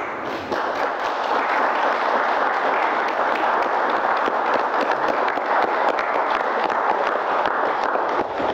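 Guests applauding the newlyweds' kiss: many hands clapping together, swelling about half a second in and then holding steady.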